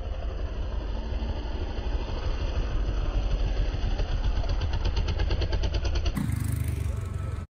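Dirt bike engine running close by, a low rumble with a fast even beat. The sound changes abruptly about six seconds in and cuts off near the end.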